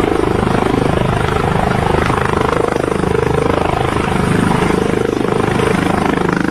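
Air ambulance helicopter lifting off and climbing close by, its rotor blades chopping with a fast, even beat over the steady run of the turbine engine.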